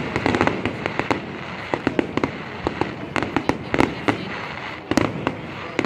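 Fireworks going off: clusters of sharp bangs and crackles in quick succession over a steady background hiss.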